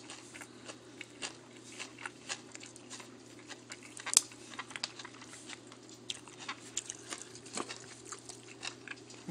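A person chewing food close to the microphone, with many small wet mouth clicks and crunches and a sharper click about four seconds in. A steady low hum runs underneath.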